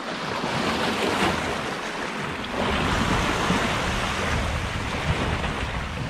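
Sea waves washing and foaming over shoreline rocks, with wind rumbling on the microphone. The wash grows a little louder about two and a half seconds in.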